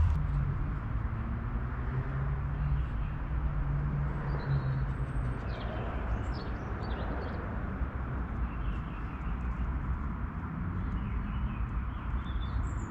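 Outdoor background: a steady low rumble with a few short, high bird chirps in the middle and again near the end.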